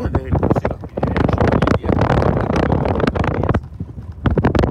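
Strong wind buffeting an unshielded microphone: a loud, gusty rumble that swells and dips irregularly.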